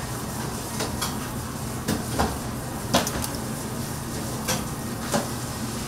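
Kitchen clatter: about six sharp knocks and clinks of utensils and dishes, the loudest about three seconds in, over a steady low hum.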